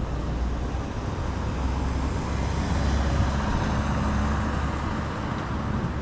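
Street traffic: a passing vehicle's low engine hum over steady road noise, swelling to its loudest about halfway through and then fading.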